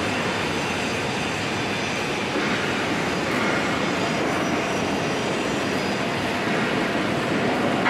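Steady, even rushing noise of a working fabrication shop, with no distinct knocks or tones.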